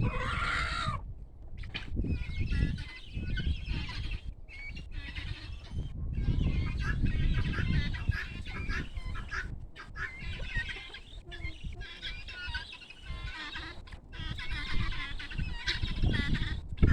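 Farmyard chickens clucking and calling, with many small birds chirping throughout and one stronger call right at the start, over a low rumble.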